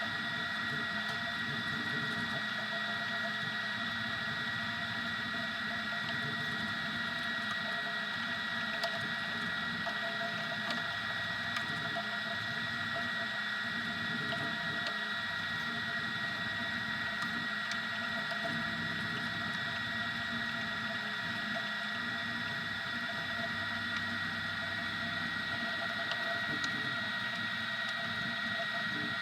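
Easythreed X2 desktop 3D printer running steadily: an unchanging high whine with a low hum beneath, and an occasional faint tick.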